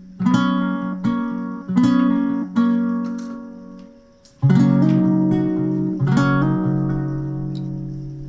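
Background music: acoustic guitar strumming chords that ring and fade, with a short break about four seconds in before fuller, louder chords come in.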